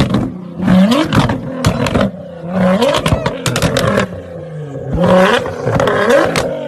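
Sports car engine revved hard several times in quick succession, each rev rising in pitch and falling back. The exhaust pops and crackles between revs.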